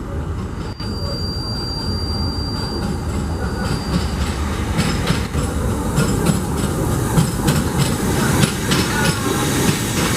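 Train running past on the track, its rumble slowly building. A thin, high wheel squeal sounds for the first few seconds, then rapid clicks of the wheels over rail joints and points come in from about halfway.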